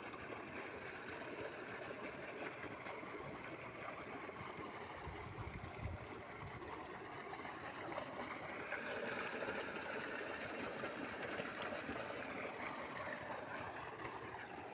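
Water from a 5 hp solar pump gushing out of the outlet pipe and splashing into a concrete tank: a steady rushing splash.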